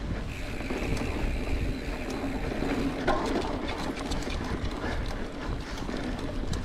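Mountain bike riding on a dirt trail: wind rumble on the microphone, tyre and drivetrain noise, and many small clicks and rattles from the bike. A steady high tone sounds over the first few seconds.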